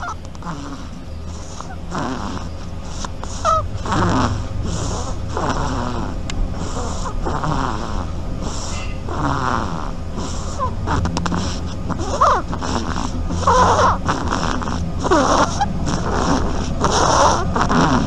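A sleeping duckling snoring: short breathy snores, roughly one to two a second, some with a faint squeaky edge.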